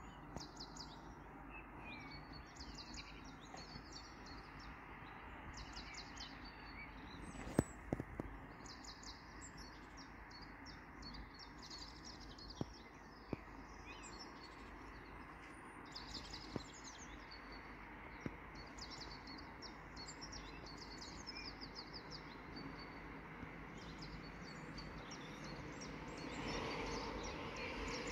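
Small songbirds chirping in short bursts of rapid high-pitched notes over a steady faint background rumble, with a few sharp clicks and the rumble swelling near the end.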